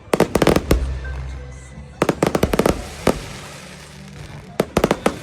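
Aerial fireworks exploding in quick volleys of sharp bangs, four clusters about a second or two apart, over music playing underneath.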